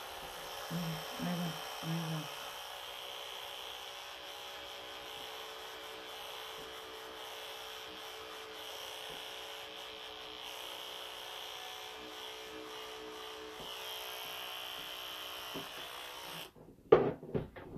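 Small electric pet clippers buzzing steadily as they shave matted fur off a long-haired cat. The buzz cuts off suddenly near the end, followed by a sharp knock.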